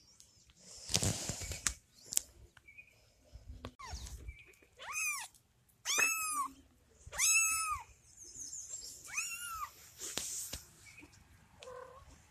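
A three-week-old tabby kitten meowing: four loud, high-pitched cries, each rising and falling, spaced a second or two apart in the second half. Rustling handling noise comes first.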